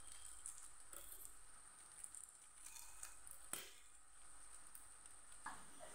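Near silence: faint steady hiss of room tone with a few soft ticks.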